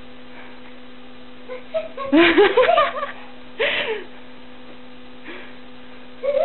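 A child's voice laughing in two short bursts, about two seconds in and again around three and a half seconds in, over a steady electrical hum.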